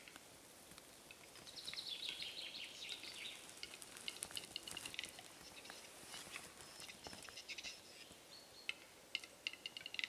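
Capercaillie lek: displaying male capercaillie giving dry clicks, with a hissing, scraping phrase about a second and a half in, and more scattered clicks later on.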